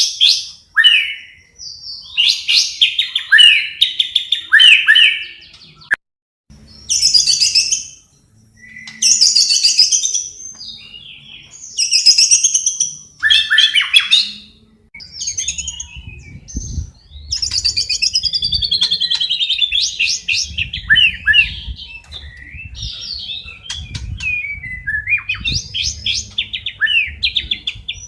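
Songbird song for training a caged bird: a run of varied phrases made of high gliding whistles, fast repeated chirps and falling sweeps, broken by short pauses.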